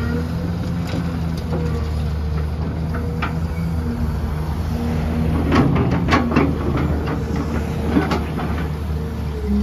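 Diesel engine of an XCMG XE265CT excavator running at a steady note. A cluster of knocks and clatter comes from about five and a half to eight seconds in.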